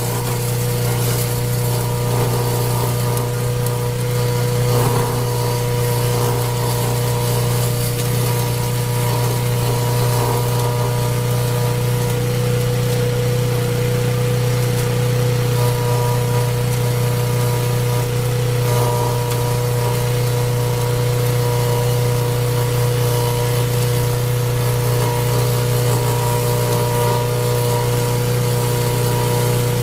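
Engine running steadily at a constant speed: a strong low hum with a steady higher whine, unchanged throughout.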